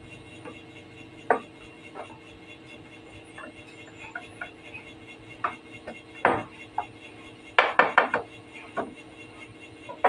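Scattered wooden knocks and clicks as solid-wood furniture parts are handled and pressed together on a workbench, with a quick run of several knocks about eight seconds in. Under them runs a faint steady hum.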